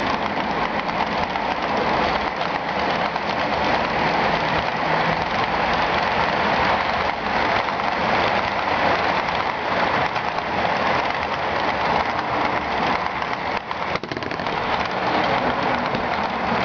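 HO scale model trains rolling along the track: a steady, dense rattle and hiss of small metal wheels on rail, with fine clicking over rail joints.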